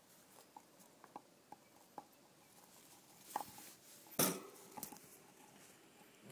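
Light handling noises in a hamster cage: a few scattered soft clicks and taps, then louder knocks and rustles a little past the middle, the loudest about four seconds in.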